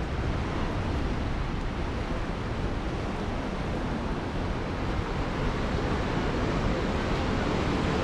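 Ocean surf breaking, a steady rushing wash, mixed with wind rumbling on the microphone.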